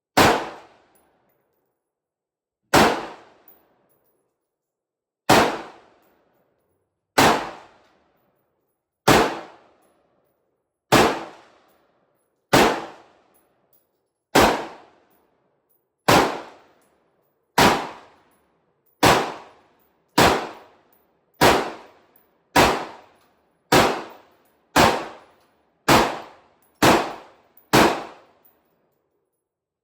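An Aero Precision AR-15 pistol in 5.56 fires about nineteen deliberate single shots of 55-grain Federal American ammunition, slow aimed fire at a target. Each shot is a sharp crack with a short ringing tail. The shots come about two and a half seconds apart at first and speed up to roughly one a second near the end.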